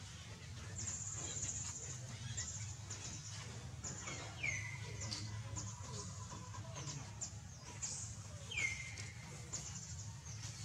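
Birds chirping, with many short, high notes sweeping downward, and twice a longer call that falls in pitch, about four seconds apart, over a steady low hum.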